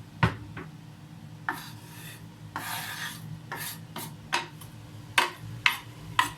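Sliced red pepper strips being scraped off a chopping board into a soup pot: a scraping rasp and about seven sharp knocks of knife or hand on the board.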